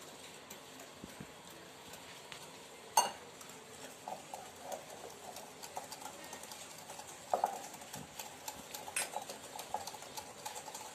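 Wire whisk clicking and scraping against a glass bowl while beating a thick butter-and-sugar mixture, in irregular taps, with two sharper knocks, about three seconds in and about seven seconds in.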